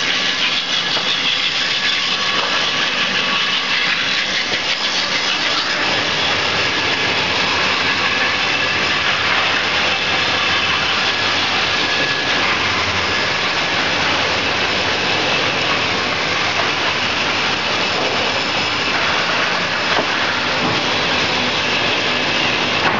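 Four-blade horizontal batten-slicing machine running steadily while it saws a timber beam fed through by spiked rollers. Its motors and blades give an even, loud whine over a hiss.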